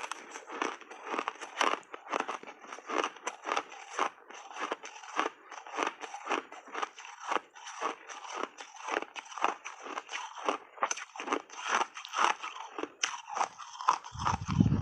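Refrozen shaved ice being crunched and chewed in big bites close to the microphone, a rapid run of crisp crunches at about three a second. A low thump comes near the end.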